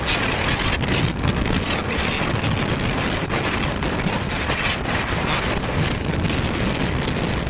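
Steady wind rushing over the microphone of a Yamaha R15 motorcycle being ridden, with the bike's running sound underneath.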